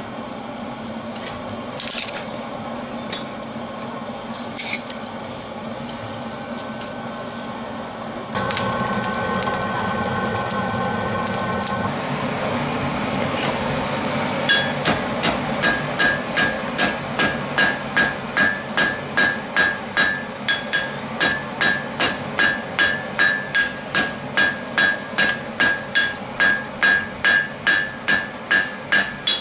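Blacksmith's hand hammer striking a red-hot steel bar on an anvil, with a steady rhythm of about two ringing blows a second starting about halfway through, as bundled twisted bars are forge-welded together.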